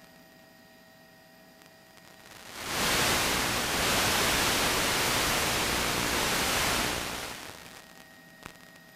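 Loud burst of static hiss lasting about five seconds, swelling in about 2.5 s in and fading out near the end: the helicopter's broadcast feed breaking up into noise. Around it, a faint steady hum.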